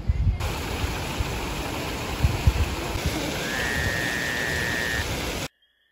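Steady rush of flowing water with wind buffeting the microphone in low gusts. A high steady tone lasts about a second and a half near the middle, and everything cuts off abruptly near the end.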